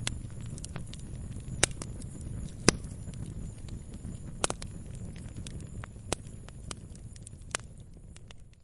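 Wood fire burning with a low rumble and irregular sharp crackles and pops, a few louder snaps among them; it fades out near the end.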